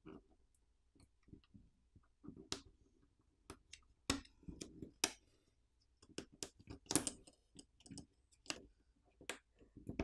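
Small irregular clicks and taps of a Samsung Galaxy S24 Ultra's internal cover plate, which carries the wireless charging coil, being worked loose at its edge by fingers and lifted off the phone.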